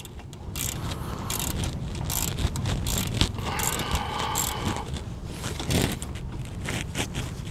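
Hand socket ratchet clicking in short strokes while a brake caliper bracket bolt is tightened down, with a longer, faster run of clicks about three and a half seconds in.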